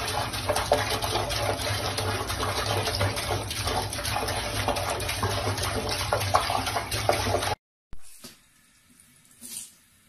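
Water running steadily from a tap and splashing into a basin, cutting off abruptly about three-quarters of the way through; after that, only faint, quiet sounds.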